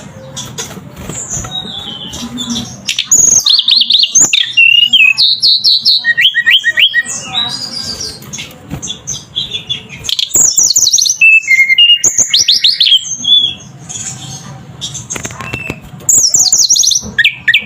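Hill blue flycatcher (tledekan gunung) singing: loud, fast warbled phrases with runs of quick falling notes, broken by short pauses.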